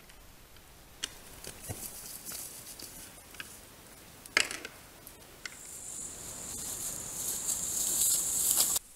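Trail-camera field sound: rustling and light clicks of animals moving in dry leaves, then one sharp crack about four and a half seconds in as red deer stags clash antlers. After that, high insects chirring in summer grass grow steadily louder and cut off abruptly near the end.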